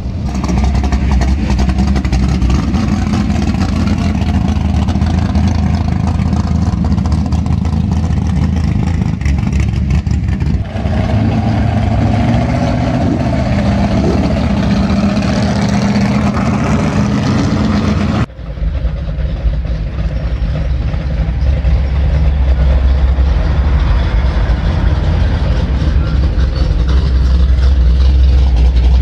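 Loud car engines running steadily at idle with a deep rumble. A little past halfway the sound cuts abruptly to another steady, deeper engine idle.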